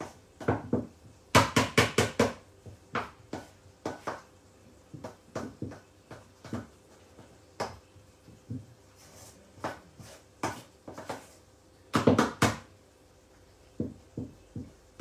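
A utensil clacking and scraping against a stainless steel mixing bowl as thick chocolate cream is stirred by hand, in uneven strokes. Two quick runs of rapid clacks stand out, one near the start and one about twelve seconds in.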